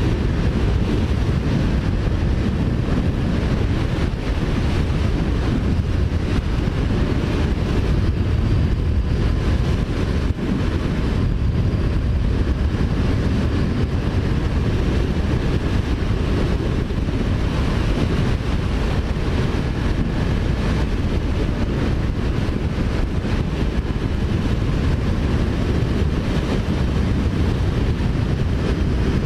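Wind rushing over the microphone of a Kawasaki Ninja 400 rider at road speed, a steady low rumble, with the bike's parallel-twin engine running underneath.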